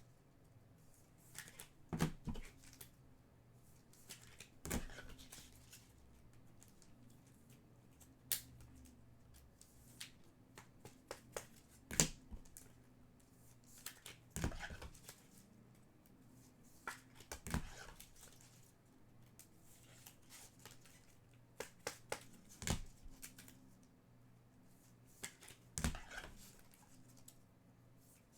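Trading cards and their packaging being handled on a table: light taps and clicks at irregular intervals, every second or few, with faint rustling between.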